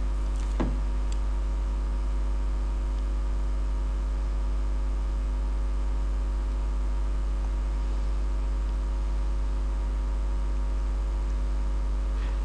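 Steady electrical mains hum and buzz in the recording chain, with a stack of evenly spaced steady tones above a strong low drone. One soft click about half a second in.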